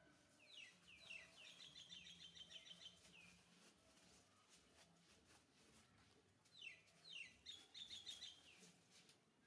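A bird singing faintly: two phrases of quick, repeated downward-sliding chirps, the first starting about half a second in and the second near the end.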